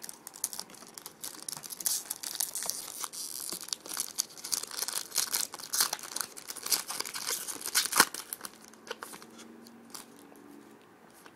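Wrapper of a trading-card pack being torn open and crinkled, a dense run of crackles with one sharp, loud snap about eight seconds in; it settles down near the end.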